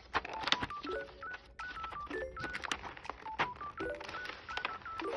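Bouncy background music of short beeping synth notes stepping up and down, with a repeating chord about every three quarters of a second. Scattered sharp clicks of mechanical keyboard keys being pressed run through it.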